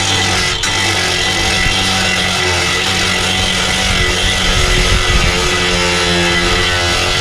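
Background guitar music over the steady running of a power tool.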